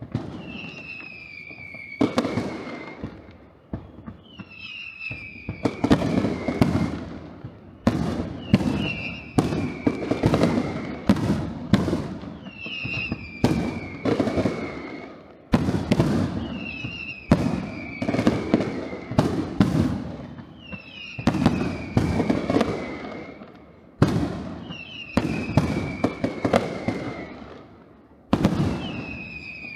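Fireworks: sharp bangs followed by crackling bursts, each group with a falling whistle, repeating about every two and a half seconds.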